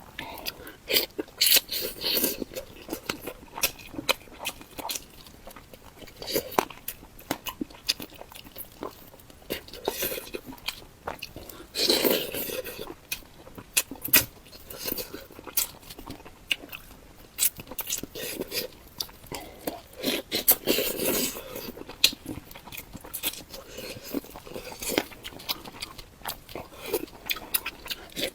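Close-miked mouth sounds of eating spicy bullfrog: steady chewing, biting and wet smacking, with a few longer, louder stretches about a third and three-quarters of the way through.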